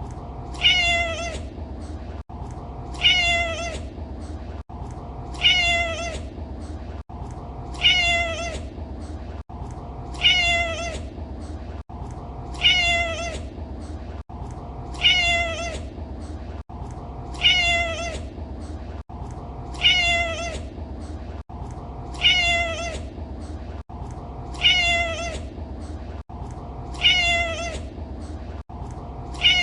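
A domestic cat's short, high-pitched meow, the same call repeating evenly about every two and a half seconds, each dipping slightly in pitch at the end. A steady low hum sits underneath.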